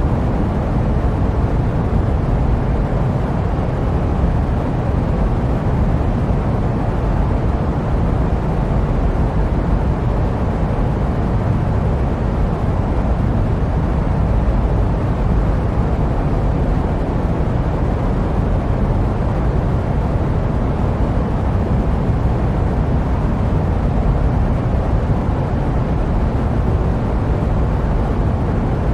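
Steady jet aircraft engine noise used as white noise: an even, deep rumbling hiss that does not change.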